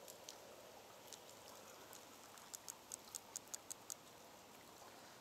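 A fishing reel ticking, with a brown trout on the line: a run of about eight quick, even clicks, some six a second, about halfway through, with a few single clicks before it. A faint hiss of rain and river runs underneath.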